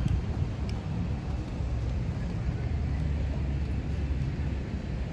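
Steady low rumble of outdoor city ambience, with a few faint ticks.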